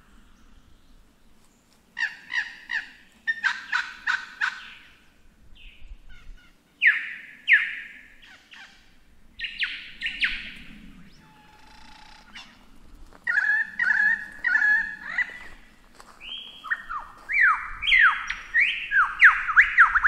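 Lyrebird singing a varied, changing sequence of phrases: quick runs of repeated notes, loud downslurred whistles, and near the end a fast string of sweeping, falling notes.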